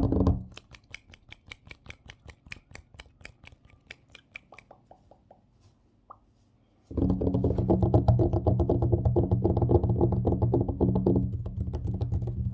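Sharp taps on a tabletop, about five a second, growing fainter and stopping after a few seconds. About seven seconds in, fast, dense tapping and scratching on the table starts suddenly and runs on loudly.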